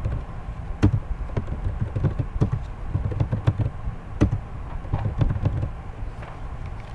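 Computer keyboard typing: quick runs of key clicks with a few louder single key strikes between them.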